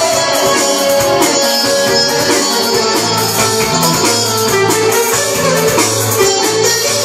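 Bouzouki played with a plectrum: a melody of quick picked notes over lower held bass notes.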